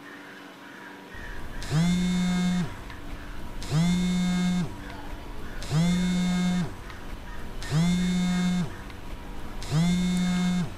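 Samsung smartphone vibrating on a bed with an incoming call: five buzzes, each about a second long, about two seconds apart.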